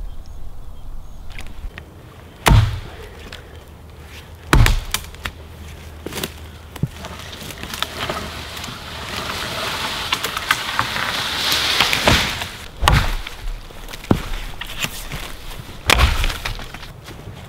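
Hatchet chopping a thin green sapling pole on the ground: four heavy strikes spread out, with lighter knocks between them and a stretch of rustling in the middle.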